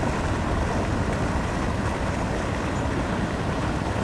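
Steady wind noise on the microphone: an even low rushing with no breaks or distinct events.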